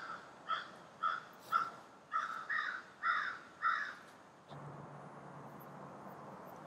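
A crow cawing over and over, about two calls a second, for roughly eight calls that stop near the four-second mark. After that comes a faint steady low hum and hiss of outdoor background.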